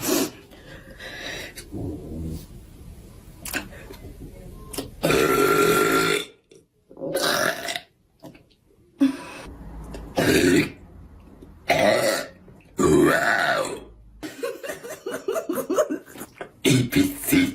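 A woman belching over and over: about half a dozen loud burps with short pauses between, the longest one about five seconds in.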